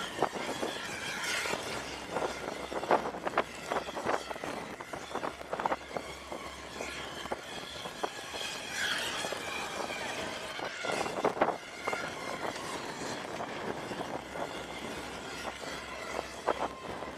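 Wooden pallets knocking and clattering at irregular moments over a steady engine hum from the boom lift, with a couple of short distant shouts about a second in and around nine seconds in.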